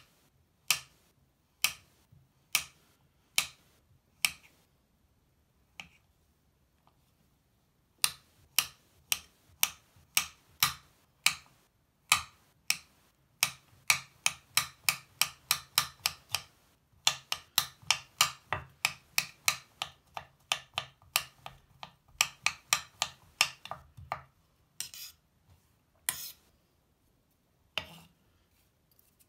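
Kitchen knife chopping a crumbly bubble bar on a cutting board: sharp clicks of the blade striking the board. A few slow single cuts come first, then after a pause a long run of quick chops, several a second, and near the end a few scrapes as the blade sweeps the pieces together.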